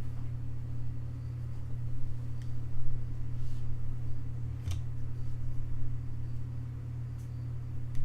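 Steady low hum with a single sharp click a little past halfway.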